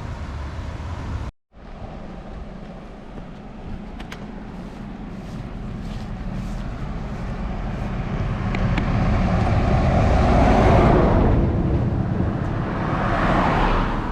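Road traffic passing: vehicle engine and tyre noise builds to a loud pass about ten to eleven seconds in, and a second vehicle passes near the end. There is a brief dropout to silence about a second and a half in.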